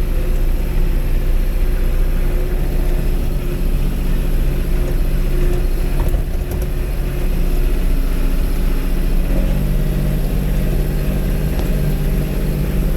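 Valmet four-wheel-drive tractor's diesel engine running steadily as the tractor drives along, its note growing stronger about nine seconds in.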